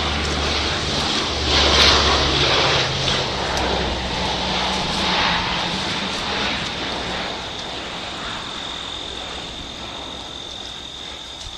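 Low-flying airplane passing over with a rushing drone and a steady low hum, loudest about two seconds in and then slowly fading away. A thin steady insect chirr becomes clearer as the plane fades.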